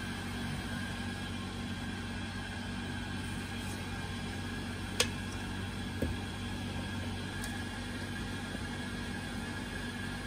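Steady mechanical hum, like a fan or small motor running, with a sharp click about five seconds in and a light knock about a second later.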